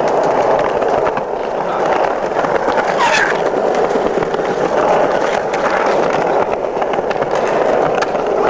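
Skateboard wheels rolling over rough pavement: a steady rumbling noise with a few sharp clicks.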